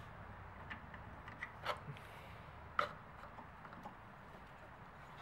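Ribbed rubber AC serpentine belt being worked off the compressor and idler pulleys by hand: a few soft clicks and knocks, the sharpest near the middle.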